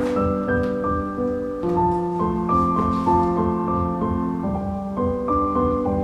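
Background piano music: held chords and melody notes over a steady low pulse.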